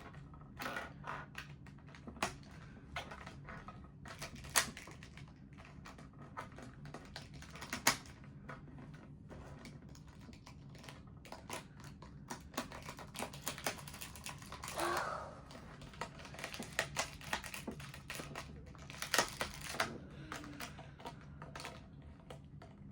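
Plastic pieces of a 2x2 Rubik's cube clicking and snapping as they are handled, pushed into place and turned, in irregular sharp clicks.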